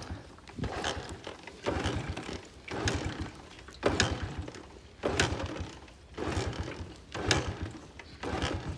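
Motorcycle being kick-started over and over, about one kick a second: each kick is a clack of the kick-starter and a short stutter of the engine turning over, which dies away without catching. The bike will not start.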